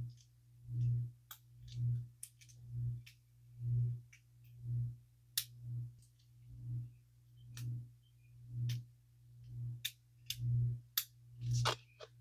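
A soft low thump repeating about once a second, with scattered light sharp clicks of small metal parts being handled, likely a fold-over magnetic clasp. A denser cluster of clicks comes near the end.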